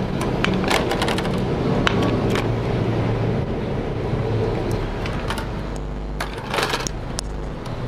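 Scattered small clicks and taps of multimeter test probes and circuit boards being handled on a workbench, with a brief burst of handling noise about six and a half seconds in, over a steady low hum.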